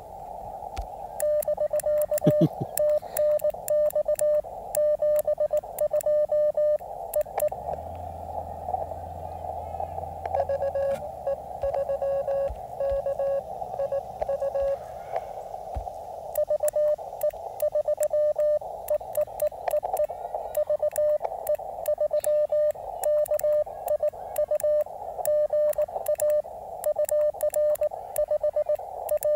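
Morse code on a low-power (QRP) CW transceiver, heard through the receiver's narrow audio filter over a steady band of receiver hiss. The operator's own sidetone is loud as he sends with a key paddle, with sharp clicks throughout. In the middle a fainter, slightly lower-pitched keyed tone answers: the other station's reply in a contact.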